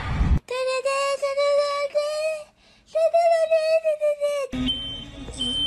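Two long held notes of about two seconds each, slightly wavering, the second a step higher than the first. Near the end a smoke alarm starts beeping with a high, shrill tone.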